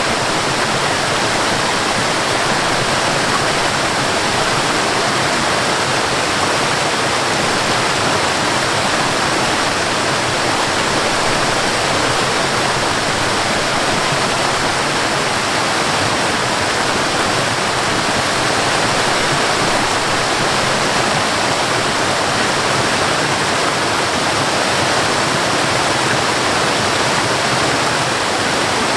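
Steady, unbroken rush of water falling from a high waterfall, an even hiss with no changes or separate splashes.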